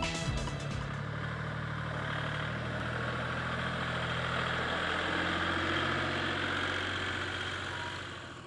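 Wolf WL80 compact wheel loader's engine running steadily as the machine drives and raises its bucket. It gets a little louder past the middle and eases off near the end.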